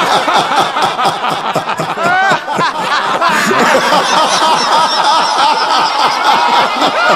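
A group of people laughing loudly together in a laughter yoga exercise, many voices overlapping in continuous peals of laughter.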